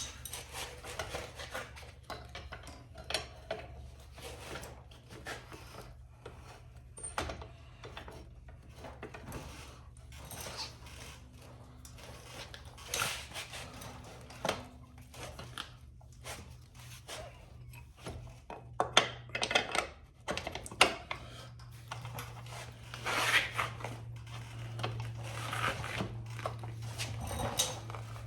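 Irregular clinks, knocks and scrapes of hand tools on metal motorcycle parts, over a steady low hum that gets louder in the last few seconds.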